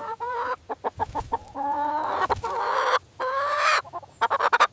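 Chicken clucking: a run of short clucks broken by a few longer calls.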